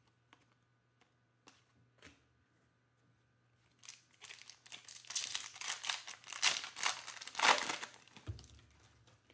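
Foil wrapper of a Panini Mosaic basketball card pack crinkling and tearing as it is ripped open by hand. The crinkling starts a little before halfway in, lasts about four seconds and is loudest near its end. A soft low thump follows.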